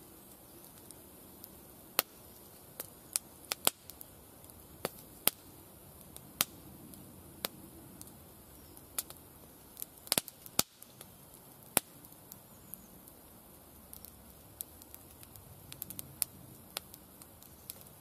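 Wood campfire crackling: irregular sharp pops and snaps, several every few seconds, over a faint steady hiss.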